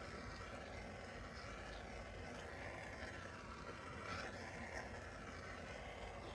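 Steady rushing noise of a heating tool switched on and blowing onto the gearbox cover, heating it so the input-shaft bearing can be dropped into its pocket.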